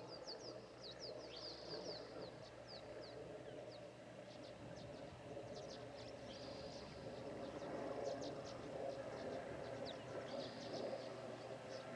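Small birds chirping in quick, high strokes, over the faint drone of a single-engine RV-6A propeller plane flying overhead. The drone grows louder from about halfway through as the plane comes nearer.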